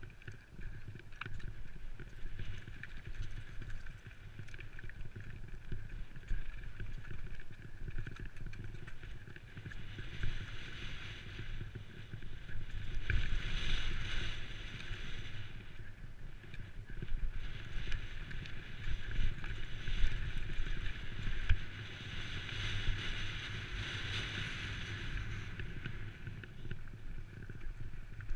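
Downhill mountain bike running fast over a rocky, loose-slate trail: a constant rattle and knocking of tyres and bike over stones, under a low rumble of wind on the microphone. A hiss swells up twice, around the middle and again in the second half.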